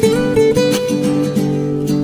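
Background music played on acoustic guitar, a run of plucked and strummed notes.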